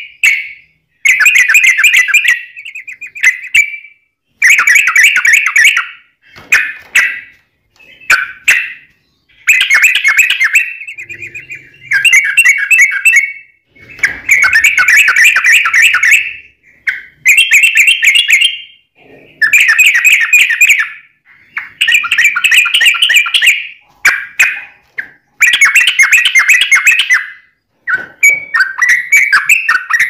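Yellow-vented bulbul singing: about fourteen short phrases of rapid, chattering notes, each one to two seconds long, with brief pauses between them.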